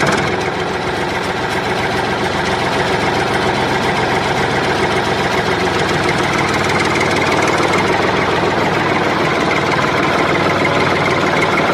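Small diesel engine running steadily at idle with a fast, even knock.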